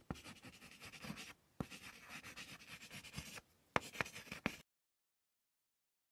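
Marker pen scratching faintly as it draws, with a few sharp ticks of the tip; it cuts off suddenly about four and a half seconds in.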